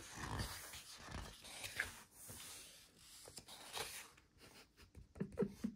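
Pages of a photobook being turned and pressed flat by hand: soft paper rustling and brushing, with a few light knocks of the page landing.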